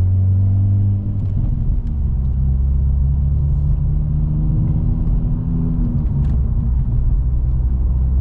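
Hyundai Veloster N's turbocharged 2.0-litre four-cylinder running through an aftermarket MBRP exhaust while driving, heard from inside the cabin. Its low drone dips about a second in, then climbs slowly in pitch as the car pulls through a gear, and levels off near the end.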